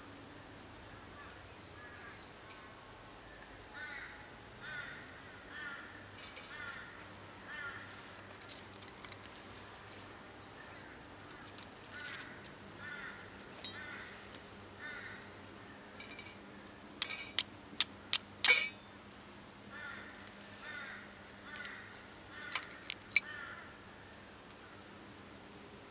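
A crow calling over and over, short harsh caws about one a second in several runs, with sharp clicks and knocks of handling in between, the loudest about two-thirds of the way through.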